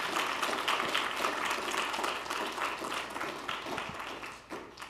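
Audience applauding, a dense patter of many hands clapping that gradually dies away near the end.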